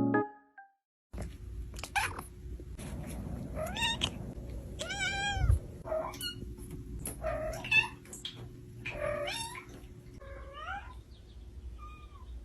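A cat meowing again and again: a string of short calls, each rising and falling in pitch, over a low steady hum, getting fainter toward the end.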